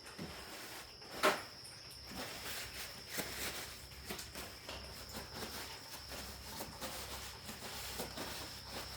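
Light, scattered clicks and knocks of hand tools working on an engine's power steering pump mounting, with one sharper knock about a second in. A faint steady high-pitched whine sits underneath.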